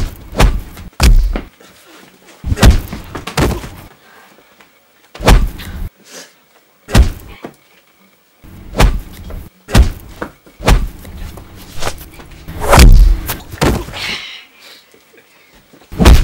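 Punch sound effects: about a dozen hard, bass-heavy hits at uneven intervals, some coming in quick pairs or threes.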